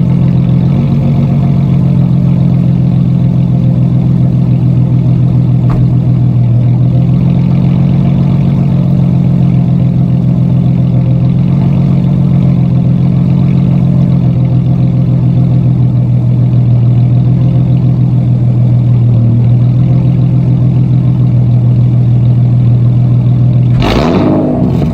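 Nissan 370Z's 3.7-litre V6 running steadily at idle, heard close up at the rear of the car, the engine kept on to light the brake lights. The sound changes and drops away near the end.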